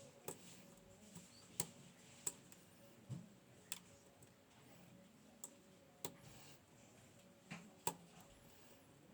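Small, sharp metallic clicks at irregular intervals from lock picks working the pins inside a Gege Pextra lock cylinder, over a faint hiss.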